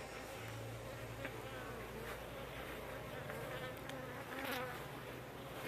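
Honeybees buzzing steadily around the hives, with the pitch wavering as bees fly about. A louder buzz comes briefly about four and a half seconds in.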